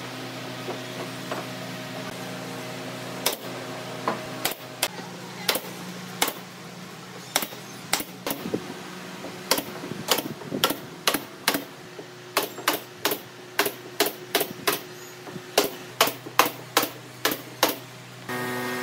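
Pneumatic nail gun firing into pine deck boards: a run of about thirty sharp, single shots, few at first and then coming two or three a second in the second half. A steady workshop hum runs underneath.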